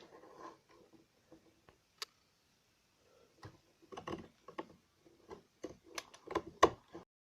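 A blade scraping and cutting at the scorched plastic of an intercom control-unit lid in short, irregular strokes and clicks, working off the blackened burnt surface. The strokes come thicker and sharper in the second half.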